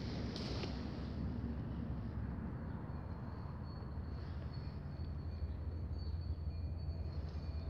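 Wind rumbling on the microphone, a low, uneven rumble with no clear events. A faint, thin, high tone comes in about halfway through and keeps breaking off.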